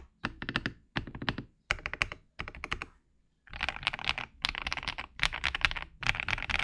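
Typing on an Akko Top 75 ACR acrylic mechanical keyboard with Akko Cream Yellow V3 linear switches: short runs of quick keystrokes, a brief pause about three seconds in, then faster, steady typing.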